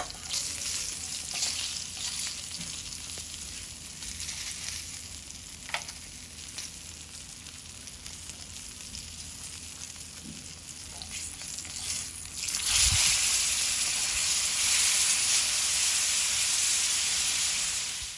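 Kingfish fillets frying skin-side down in olive oil in a stainless steel pan, sizzling steadily with a few faint clicks. The sizzle grows noticeably louder about two-thirds of the way in.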